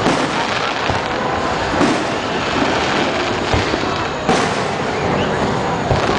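A fireworks display with shells bursting in a series of sharp booms, about one a second, over a constant crackling hiss.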